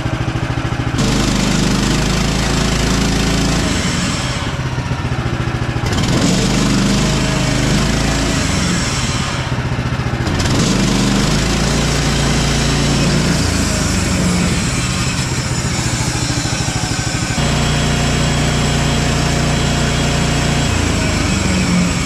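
Gas engine of a Woodland Mills HM130 MAX portable bandsaw mill running steadily, its note shifting several times. This is the first run after a new band blade was fitted and tensioned, when the blade wheels had been turning hard.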